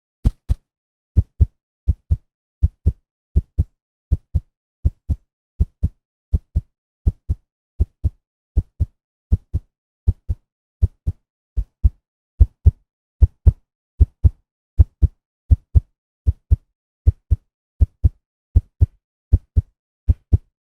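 Heartbeat sound effect: steady double thumps, lub-dub, at about eighty beats a minute.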